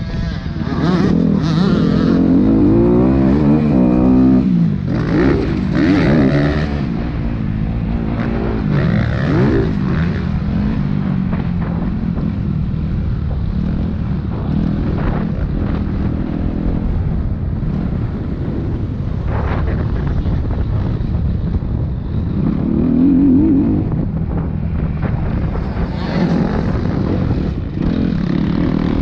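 Dirt bike engine heard on board, revving hard with its pitch climbing and dropping as it accelerates and shifts through the gears, most busily in the first several seconds and again about three-quarters of the way through.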